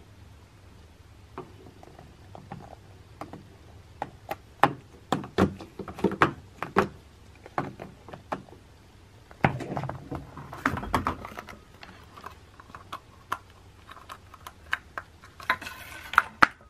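Plastic Easter egg being batted around by a cat, giving irregular light clicks, knocks and rattles against wood. The clicks come in clusters, busiest a few seconds in and again near the middle.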